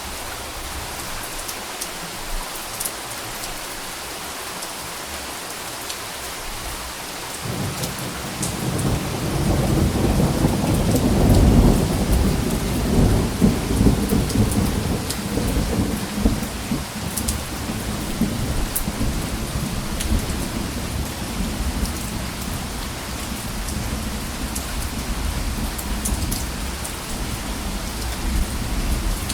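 Steady rain falling, with close drops ticking, and a long roll of thunder that rumbles in about seven seconds in, peaks a few seconds later and slowly fades to a low grumble.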